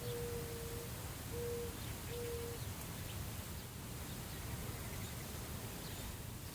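Mourning dove cooing: the last three steady, low hooting notes of its song, one longer then two short, ending under a third of the way in. Steady wind rumbles across the microphone underneath.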